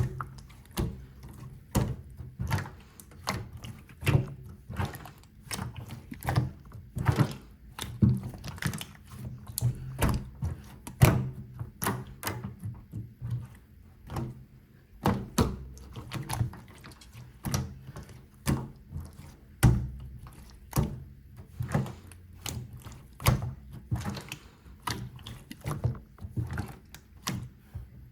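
Slime being pressed and squished by hand, making irregular sharp clicks and pops, several a second.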